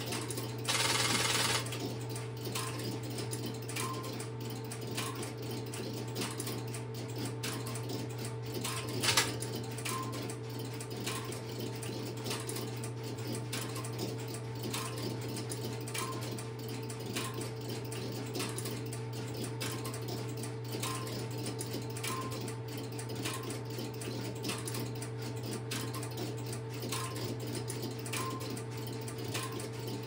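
Strowger Carlson X-Y telephone switch equipment with its interrupter running: fast, continuous relay and contact clicking with a regular tick about once a second, over a steady electrical hum. A brief louder burst of noise comes about a second in, and one sharp click just after nine seconds.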